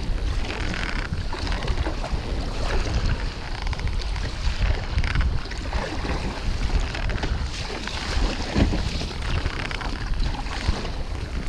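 Wind buffeting the microphone, with water splashing and slapping around a kayak as it is paddled through wind-blown chop. An even, surging rush with a heavy low rumble and no breaks.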